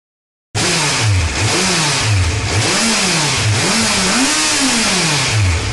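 Kawasaki Z900 inline-four engine revved through its stock exhaust, cutting in suddenly about half a second in. It is blipped repeatedly, the pitch climbing and falling with each blip before settling back down near the end.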